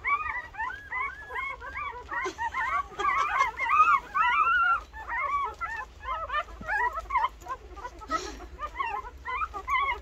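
A litter of two-week-old Rottweiler puppies squeaking and whimpering as they jostle to nurse. Many short high cries overlap, busiest in the first half and thinning out toward the end.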